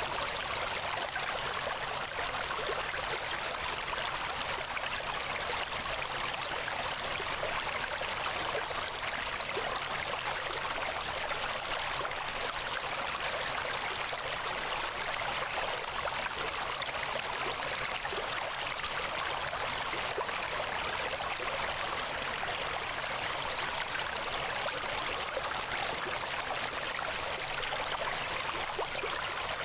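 A steady, even rushing noise that never changes or breaks, with no distinct events in it.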